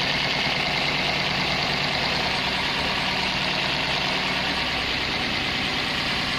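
Daihatsu Gran Max 1.3-litre engine idling steadily but roughly, misfiring and shaking. The misfire comes from worn-out spark plugs.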